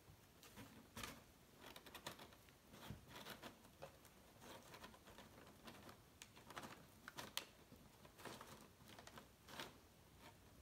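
Faint, irregular rustling, scratching and light tapping as a cat moves about in a cardboard box, treading on crumpled brown packing paper and the cardboard flaps.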